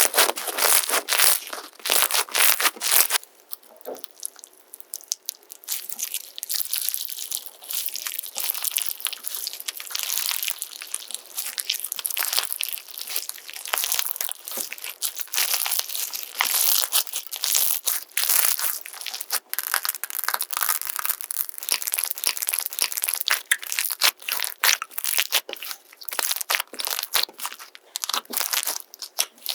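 Slime being pressed, poked and squeezed by hand, giving dense crackling and crunching clicks. The first few seconds are louder.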